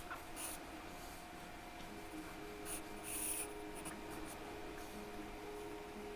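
Charcoal pencil sketching on drawing paper: light scratchy strokes, with a longer run of strokes around three seconds in.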